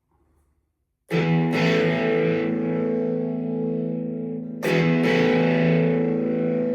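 Distorted electric guitar chords struck and left to ring: the first about a second in, hit again just after, then fading, and a second chord at about four and a half seconds, ringing on.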